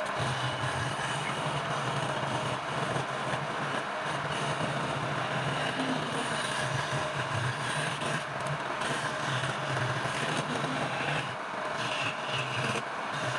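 Lathe running with a turning tool cutting the spinning workpiece: a steady scraping over a low motor hum.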